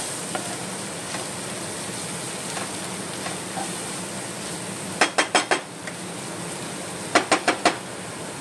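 Onion-and-spice masala sizzling in a nonstick frying pan as it is stirred with a wooden spatula. About five seconds in, and again near the end, the spatula knocks four times in quick succession against the pan.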